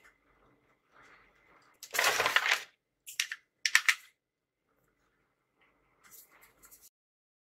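Handling of a book and kraft-paper envelopes: a loud rustle of paper as the book is set down about two seconds in, followed by a few sharp taps and clicks on the desk, then faint paper rustling near the end as an envelope is picked up.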